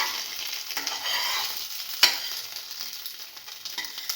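Egg-soaked French toast sizzling in hot oil in a frying pan, just turned over, with a single sharp clack about two seconds in.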